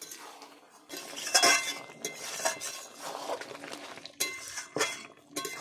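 Metal spatula scraping and clanking against a steel wok while stirring chicken curry, with several sharp clinks.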